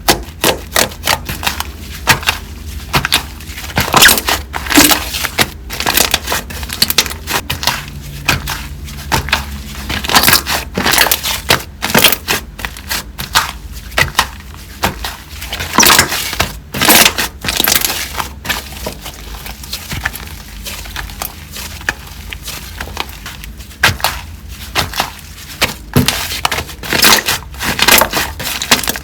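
Slime being squeezed, pressed and poked by hand, giving a dense, irregular crackling with sharp pops and clicks.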